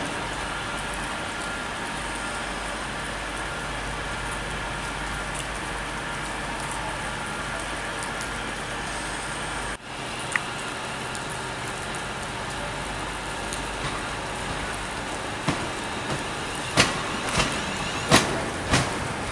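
Steady mechanical hum with a faint whine, broken by a sudden cut about ten seconds in. In the last few seconds a train's wheels clack over rail joints, the knocks coming about twice a second and growing louder.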